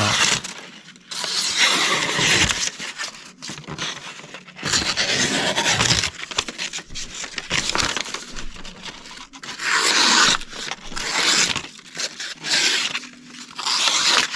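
Knife blade being stroked across a Sharpal diamond sharpening plate: a series of gritty scraping strokes, each a second or two long, with short pauses between.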